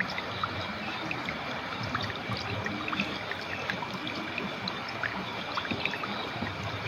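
A clear, shallow river flowing steadily, with many small trickles and splashes bubbling and plinking over the stones.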